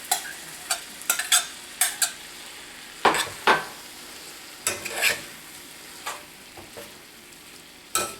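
Dirty rice with sausage sizzling steadily in a cast iron skillet, with a utensil scraping and knocking against the pan at irregular moments as black beans go in; the loudest scrapes come about three and five seconds in.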